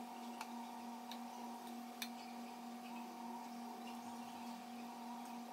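Faint steady hum of a few constant tones, with a few light, sparse ticks of a kitchen knife against a wooden cutting board as fat is trimmed off raw filet mignon.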